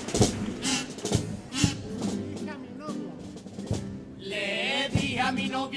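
Instrumental bridge of a Cádiz carnival chirigota: guitar accompaniment with scattered bass drum and snare hits. A little over four seconds in, the male chorus comes back in singing.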